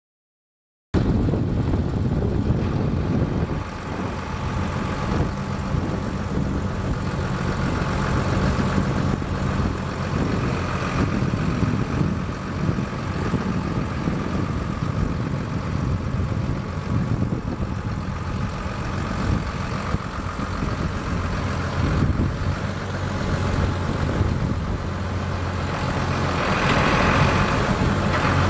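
2004 Versatile 2210 tractor's six-cylinder turbo diesel engine running steadily, growing a little louder near the end.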